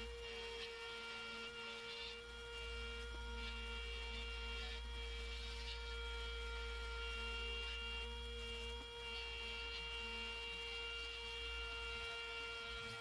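Buffing motor running steadily with a sisal wheel polishing copper: a steady hum of several held tones over a low rumble, with faint scratchy touches from the wheel.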